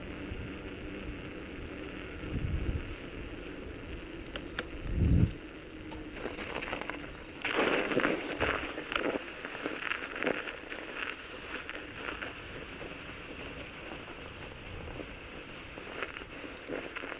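Mountain bike riding: steady tyre rolling noise and wind on the microphone, with a couple of low thumps in the first few seconds. From about seven seconds in, as the bike runs onto snow, the rolling noise turns louder and rougher for a few seconds, then settles again.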